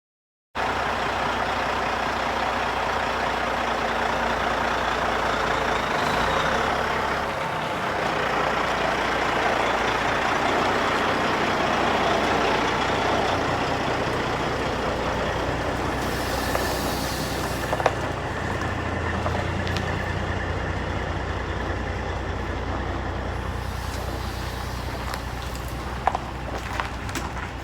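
A vehicle engine running steadily, with a brief high hiss of air about 16 seconds in and a few clicks near the end.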